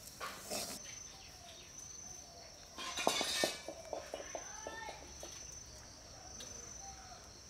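Outdoor garden ambience: a steady high insect drone with scattered bird calls, and a louder burst of bird chatter about three seconds in.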